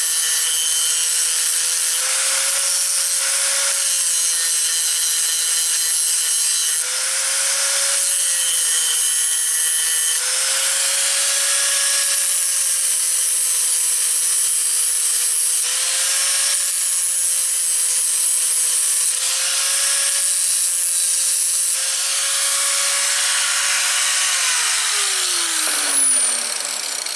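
Angle grinder grinding weld built up on broken gear teeth back into tooth shape. It is a steady motor whine over a loud grinding hiss, and the pitch wavers briefly every few seconds. About 24 seconds in the grinder is switched off and its whine falls away as it winds down.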